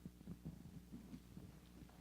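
Near silence: room tone with a steady low electrical hum and a few faint soft thuds.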